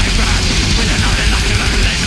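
Black metal band playing live, loud and without a break: distorted electric guitars over fast, dense drumming.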